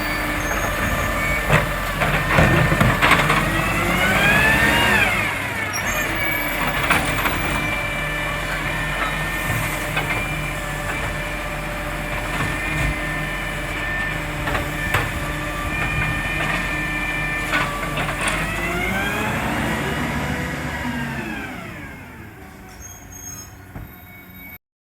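Garbage truck working, its exhaust leak repaired. The engine revs up and back down twice, a few seconds in and again near twenty seconds, over a steady whine and scattered knocks and clunks. It fades out near the end.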